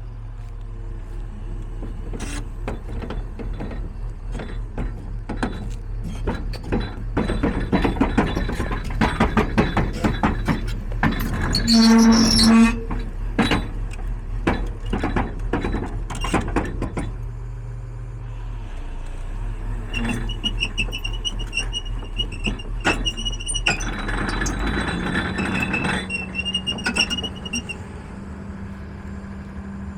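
Volvo EC290LC excavator's diesel engine running steadily, with many metallic clanks and knocks, a brief loud tone near the middle, and high squeals in the second half; the engine note changes pitch near the end.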